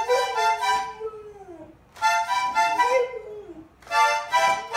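A small accordion plays short bursts of chords while a dog howls along, each long howl sliding down in pitch.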